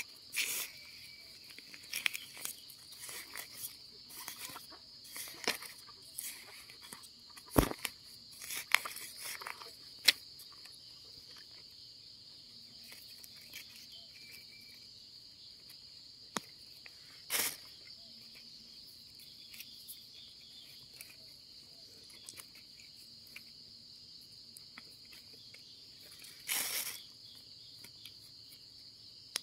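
Steady high-pitched insect chirring, with scattered rustling, scraping and clicks from hands digging termite mushrooms out of the soil. The handling noises are busiest in the first ten seconds, with a couple of louder scrapes later.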